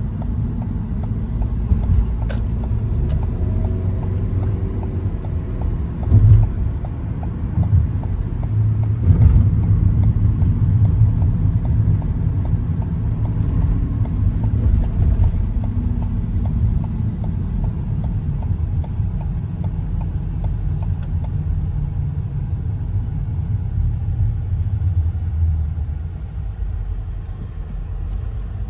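Car driving, a steady low engine and road rumble, swelling briefly about six and nine seconds in.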